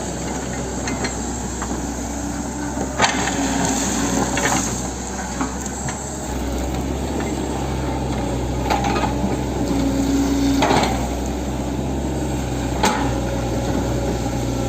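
Hitachi 110 excavator's diesel engine running steadily, a little louder from about six seconds in, with several sharp knocks and clanks from the machine at work.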